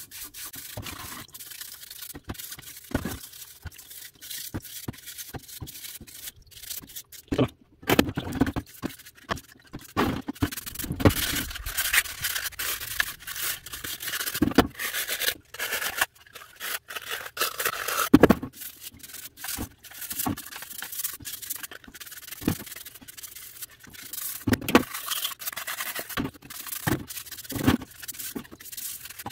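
Brush scrubbing oily grease off rotary-hammer parts with paint thinners, in quick irregular strokes with a few sharper knocks.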